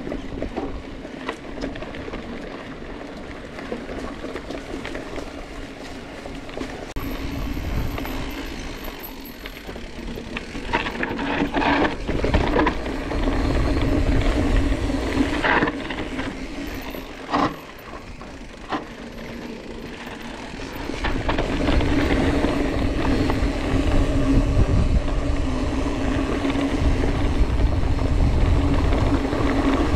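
Specialized Epic cross-country mountain bike rolling over a trail: a steady rumble of tyres and wind noise, with a few sharp knocks from bumps in the middle, getting louder over the last third.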